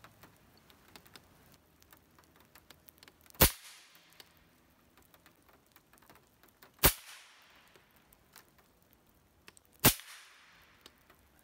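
Three suppressed shots from an AirForce Texan .308 big-bore PCP air rifle fitted with a DonnyFL Emperor suppressor, about three and a half seconds apart, each a sharp crack with a short echo. Raindrops tick faintly on the shooting table between shots.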